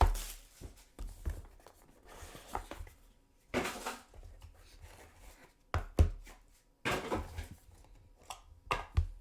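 Trading card box and pack being opened and handled: a series of short rustles and sliding scrapes of cardboard and wrapper, with scattered taps and knocks.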